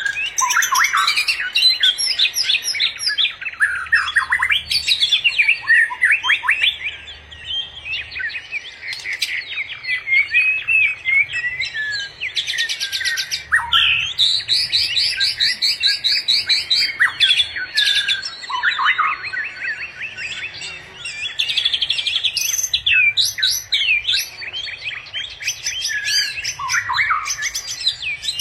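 Songbirds singing without a break: a busy mix of quick chirps, sweeping whistles and rapid trills, with a long fast trill about halfway through.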